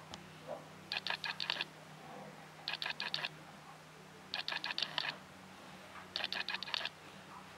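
Short runs of rapid, sharp mechanical clicking, five or six clicks at a time, repeating in a steady rhythm about every second and three-quarters over a low steady hum.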